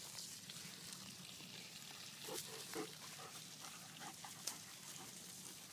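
A dog making a few faint, short grunts about two and a half to three seconds in, over a quiet background.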